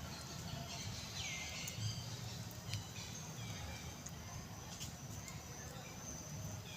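Outdoor ambience with a short, high animal call about a second in that slides down in pitch, plus a few scattered clicks over a low steady rumble.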